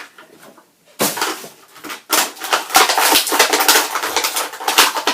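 Action-figure packaging being opened by hand: plastic and cardboard crinkling and crackling densely, starting about a second in.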